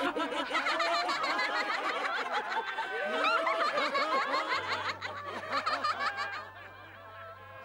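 Several cartoon voices laughing together. A low, held music note comes in about four and a half seconds in, and the laughter dies away about six seconds in.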